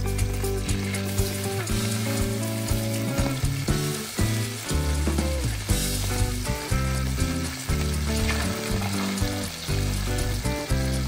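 Tilapia fillets sizzling steadily in hot oil in a frying pan as they are turned with metal tongs, with background music playing under the sizzle.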